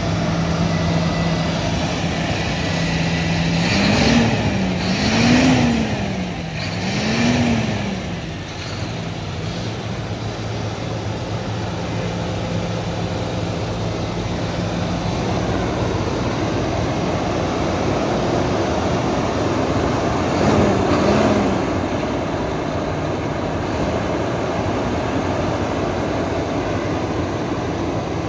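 2012 Scania P230 truck's diesel engine idling steadily, revved three times in quick succession a few seconds in and blipped twice briefly about two-thirds of the way through, dropping back to idle each time.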